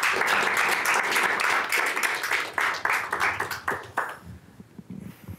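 A small audience applauding, the clapping dying away about four seconds in.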